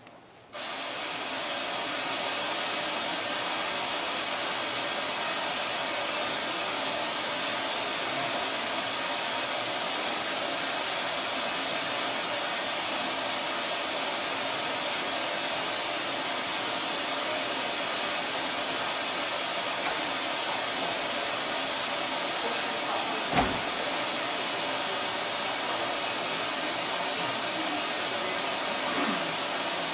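Steady rushing hiss that starts suddenly about half a second in and holds an even level, with a single short knock about 23 seconds in.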